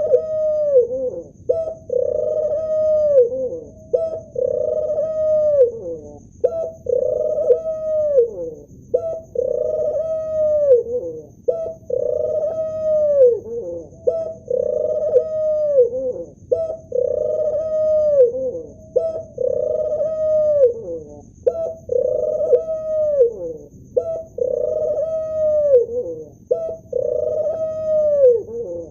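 Male ring-necked dove cooing over and over, about one coo every two seconds: a short note, then a long held coo that drops in pitch at the end.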